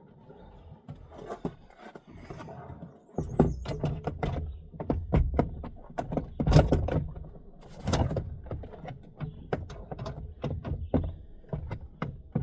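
Plastic car door trim panel being forced back onto the door, with quiet handling noise at first, then from about three seconds in a long run of sharp knocks and thumps as the panel's clips are slapped home.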